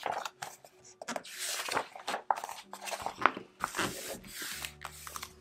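Paper pages of a picture book being turned and smoothed flat by hand: several rustling swishes and rubs, with a sharp tap about three seconds in, over soft background music.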